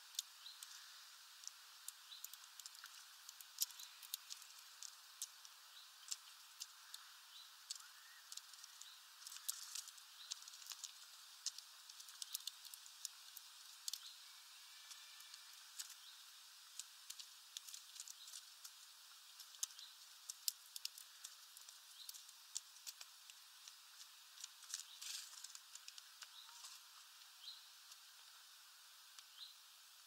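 Irregular sharp clicks and cracks of European greenfinches and a common chaffinch husking black sunflower seeds on a feeder tray, with a few faint short high chirps.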